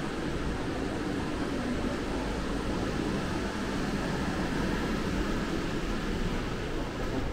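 Steady low rumble and hiss of building ventilation, even throughout with no distinct events.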